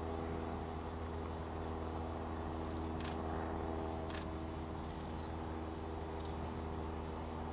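Steady low hum with several even tones from the Sony DCR-TRV240E tape camcorder's own mechanism, picked up by its built-in microphone. Two brief sharp clicks come about three and four seconds in.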